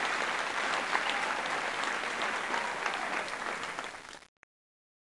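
Crowd applause, a dense patter of many hands clapping, fading and then cutting off abruptly about four seconds in.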